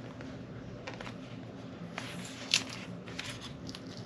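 Packaging of a tempered-glass screen protector pack being handled and opened by hand: light rustling with a few small clicks and taps, the sharpest about two and a half seconds in.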